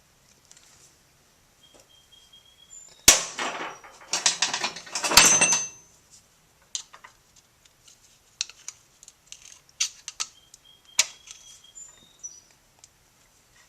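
A metal tool prying a retaining ring out of its groove on a gearbox shaft: sharp metallic clicks with scraping and rattling, loudest about 3 and 5 seconds in, then a scatter of lighter clicks and one more sharp click near the 11-second mark.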